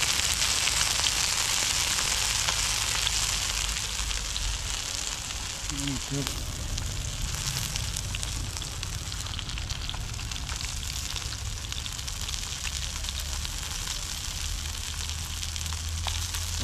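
Masala-coated fish pieces sizzling as they fry in coconut oil with curry leaves in a frying pan, a steady hiss that eases a little after the first few seconds.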